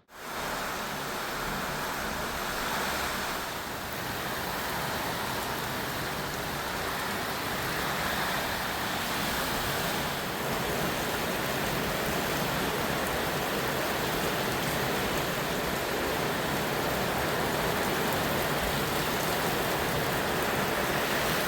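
Heavy rain pouring down in a storm, a steady hiss.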